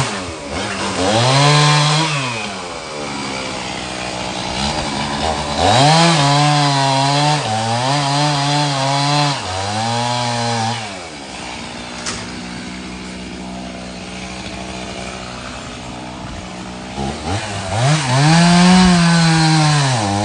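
Gasoline chainsaw cutting up a fallen tree, the engine revving up and dropping back in repeated surges. It settles to a lower, steady run around the middle, then revs up again near the end.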